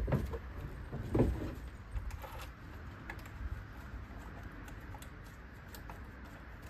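Someone climbing aboard a small racing boat on its trailer: two dull thumps near the start and about a second in, then faint scattered clicks and handling noise as gloved hands work at the outboard engine. The engine is not running.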